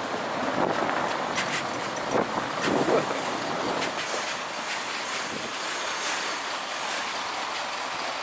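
MAN TGX 41.680 truck's V8 diesel engine running as the tractor unit moves slowly at low speed, with wind on the microphone. A few short knocks come in the first three seconds.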